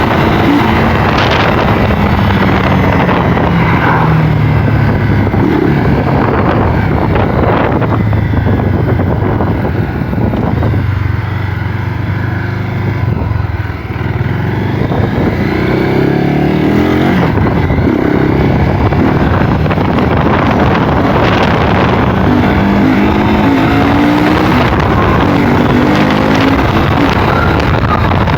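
Honda CB 250 Twister's single-cylinder engine running with its air filter removed while the motorcycle is ridden, its pitch rising and falling as it revs and shifts through the gears. It eases off briefly about ten seconds in, then pulls hard again, with wind rushing over the microphone.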